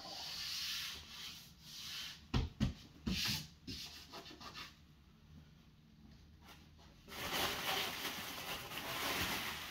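Hands rubbing and sliding over the surface of a large hard-shell shipping crate, with a few sharp knocks against it about two and a half to three seconds in and a longer stretch of rubbing near the end.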